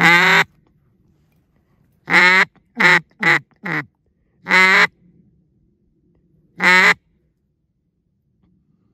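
Duck call blown close by with mallard hen quacks: one loud quack, a quick run of four shortening quacks, then two more single quacks a couple of seconds apart. The calling is meant to coax incoming ducks to land.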